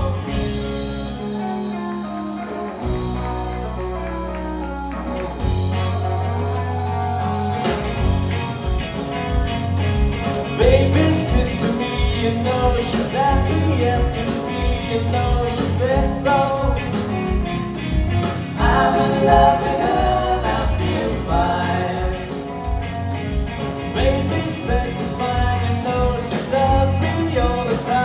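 Live rock band playing with electric guitars, bass guitar, drums and vocals. The first few seconds are held chords, then a steady beat comes in about five seconds in.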